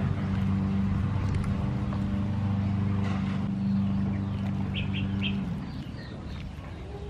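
Small birds chirping in short high notes, over a steady low hum that stops about five and a half seconds in.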